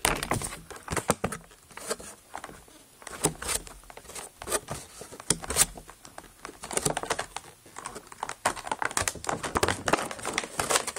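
Clear plastic toy packaging crinkling and rustling as it is handled, with irregular crackles that grow denser in the second half.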